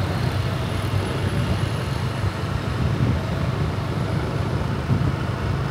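Steady city road traffic: a continuous low rumble of passing vehicles.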